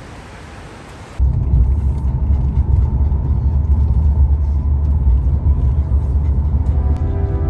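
A steady hiss cuts off about a second in and gives way to the loud, steady low rumble of a car driving, heard from inside the cabin.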